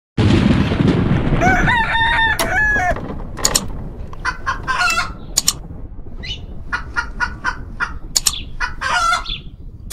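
Sound-effect outro: a loud noisy blast lasting about a second and a half, then a pitched call that steps in pitch, followed by a long run of short, sharp bird-like calls.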